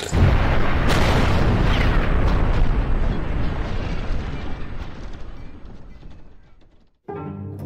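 Bomb explosion: a sudden loud blast, then a long rumble that dies away over about six seconds. Low bowed strings begin near the end.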